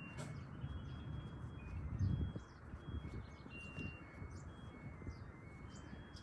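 Birds chirping and whistling: short, steady high notes at a few different pitches, scattered irregularly, over a low rumble with a single thump about two seconds in.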